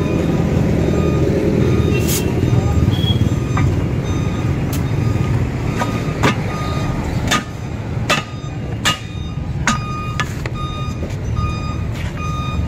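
Hammer blows on a steel truck rim and lock ring: a series of sharp metallic clanks, most of them in the second half, over a steady low engine rumble. A short high beep repeats about every three-quarters of a second.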